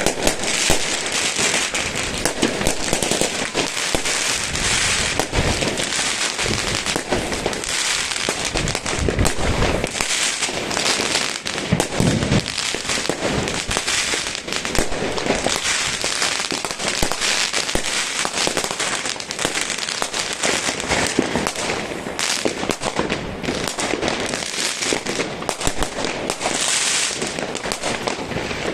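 New Year's fireworks and firecrackers going off without pause: a dense, continuous crackle of many small bangs, with a few deeper booms among them.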